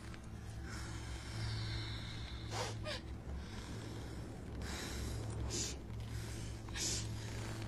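Close, heavy breathing and gasps, a string of short breaths, over a steady low rumble.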